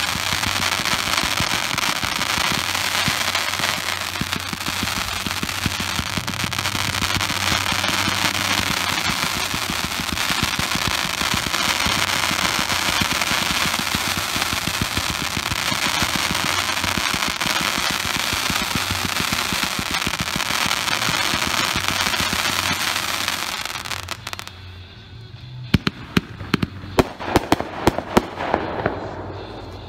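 Multi-shot consumer firework cake firing a rapid, continuous barrage of crackling comets and reports for about twenty-four seconds. It then thins to a few separate sharp bangs near the end.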